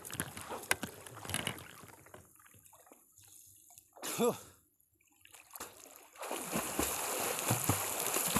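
A swimmer's arm strokes splashing the water of a lake. After a few quieter seconds of small splashes, a steady run of splashing starts about six seconds in.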